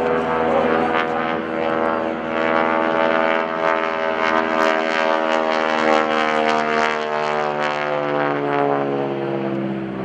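North American SNJ-5 Texan's Pratt & Whitney R-1340 Wasp radial engine and propeller running at power overhead, a loud, rasping drone. Its pitch falls over the last few seconds.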